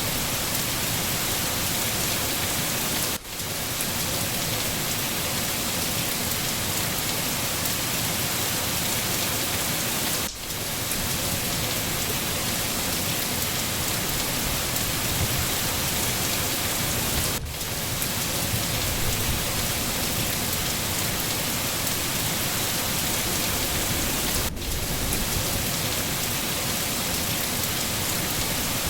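Steady, dense rain falling, a continuous even hiss. Four times, about seven seconds apart, it briefly dips in level.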